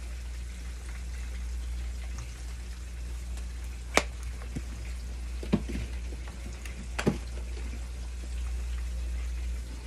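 Cream sauce cooking in a pan on the stove with a faint steady sizzle under a low hum, broken midway by three sharp clicks or taps about a second and a half apart.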